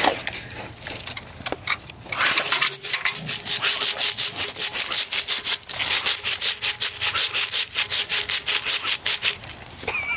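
A dog licking the ice on a frozen plastic kiddie pool: quick rasping strokes of its tongue on the ice, about five or six a second, running steadily from about two seconds in until shortly before the end.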